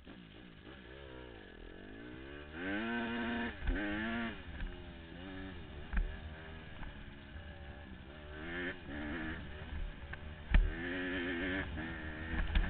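Honda CRF150R dirt bike's single-cylinder four-stroke engine revving up and down repeatedly as it is ridden, with the pitch climbing and dropping through the throttle and gear changes. A sharp knock about ten seconds in.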